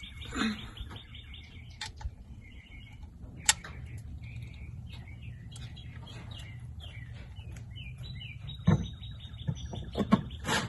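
Songbirds chirping outdoors, with a fast trill of rapidly repeated high notes near the start and again near the end. A few sharp clicks and knocks of hand tools against metal sound in between.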